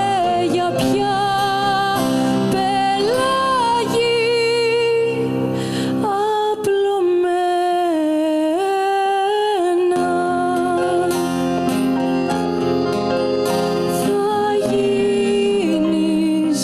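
A small Greek band playing live: a woman singing a melody with vibrato over accordion, plucked strings and acoustic guitar. The low accompaniment drops away for a few seconds near the middle, then comes back.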